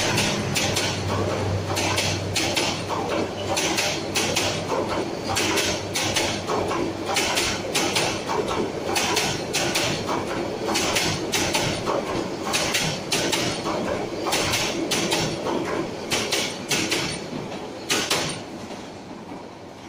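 Intercity passenger coaches passing close at speed: a steady rolling rumble with the wheels clattering over rail joints in irregular clacks. The clatter dies away near the end as the last coaches go by.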